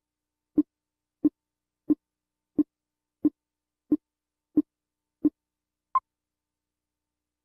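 Film countdown leader sound: short low blips ticking off about one and a half times a second, nine in a row, followed by a single higher-pitched beep, the sync pop, about six seconds in.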